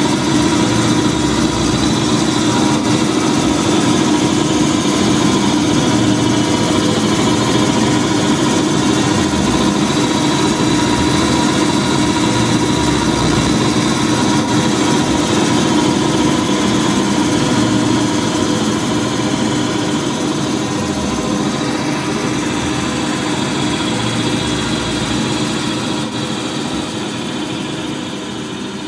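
A loud, dense droning wall of noise with several steady held tones, unbroken, then fading slowly over the last several seconds.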